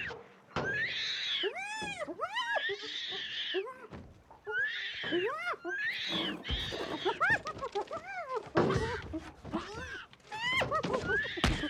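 Spotted hyena and orangutan shrieking and yelping at each other in a run of high cries, each rising and falling, several a second, with a heavy thump shortly before the end.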